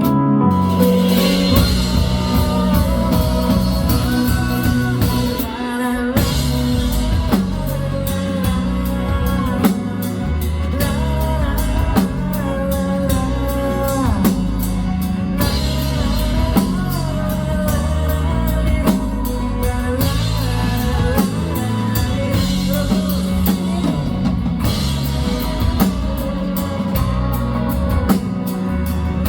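Live band music with drum kit, bass and guitar playing a steady, loud rock-style groove, with a melodic lead line over it.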